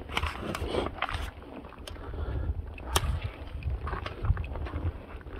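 A person wading through shallow river water: irregular sloshing steps and scuffs, with one sharp click about three seconds in.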